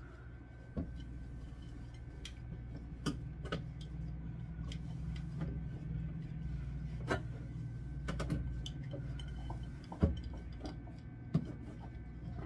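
Jars and bottles knocking and clinking now and then as they are handled on a refrigerator's plastic door shelves, the loudest knock about ten seconds in, over a steady low hum.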